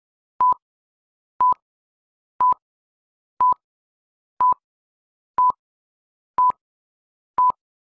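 Film-leader countdown beeps: short, single-pitched electronic beeps, exactly one per second, eight in a row.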